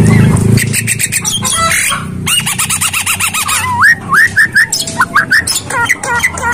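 Javan myna (jalak kebo) singing in breeding mood: a burst of rapid rattling clicks, then a fast warbling trill, then a string of short rising whistled notes.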